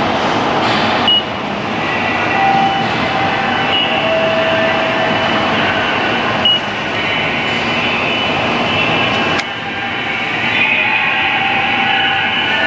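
Ticket vending machine touchscreen giving three short high beeps as its buttons are pressed, over a steady loud mechanical rumble with shifting tones.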